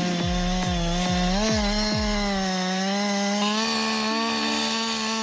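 Chainsaw running at high revs, cutting wood; its steady high engine note dips and rises slightly under the load of the cut.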